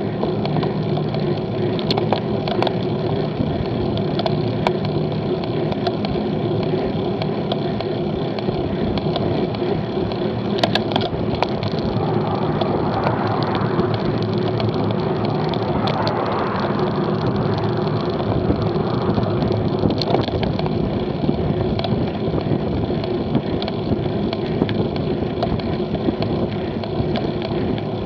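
Road bicycle riding uphill at about 11 mph, heard from a camera mounted on the bike: steady tyre and drivetrain noise mixed with wind on the microphone. There are a few sharp clicks, and a swell of rushing noise around the middle.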